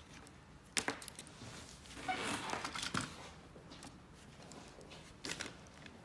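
Handling noise from wires and a plastic enclosure being worked by hand: a sharp click about a second in, a scratchy rustling stretch a couple of seconds in, and another brief clatter near the end.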